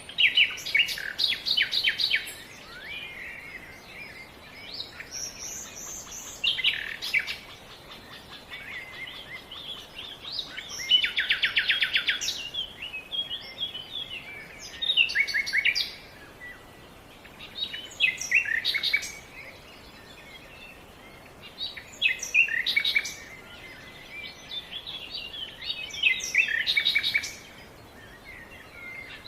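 Birds singing outdoors: short phrases of fast trills and chirps that come back every few seconds, over a faint steady background hiss.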